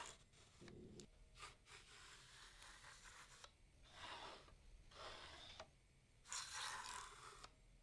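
Faint rubbing swish of a linear glass scale's reading head being slid by hand along the scale body, in a series of short strokes.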